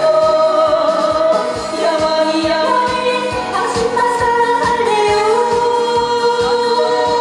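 A woman sings a trot song into a microphone over a backing track with a steady beat, holding long notes.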